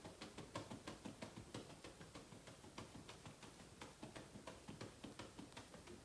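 Soft, quick patting of a hand on a baby monkey's back, about four to five pats a second, as it is massaged to sleep.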